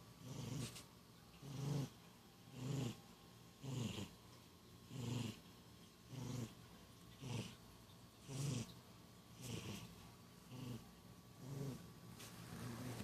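Sleeping cat snoring, a short snore with each breath, about one a second in an even rhythm.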